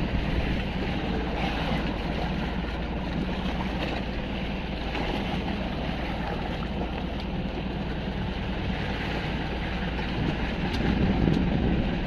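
Steady wind and sea noise on a small fishing boat out on the open ocean, with wind buffeting the microphone, swelling slightly near the end.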